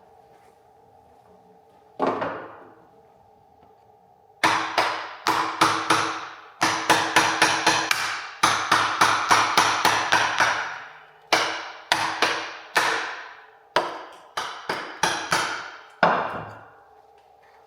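Hammer pounding a plastic chisel to knock cylindrical 21700 cells out of a Tesla Model 3 battery module: one blow, then a long run of quick sharp blows, about two or three a second, with a few short pauses.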